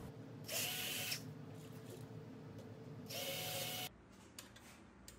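Cordless drill running in two short bursts of about half a second each, drilling holes through aluminium hinge brackets and spar, its motor whine rising as each run starts. After the second burst the sound cuts off to near silence with a few faint clicks.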